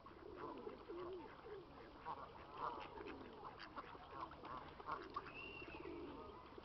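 Ducks calling on the water, a steady run of short quacks and chatter, with one longer thin call about five seconds in.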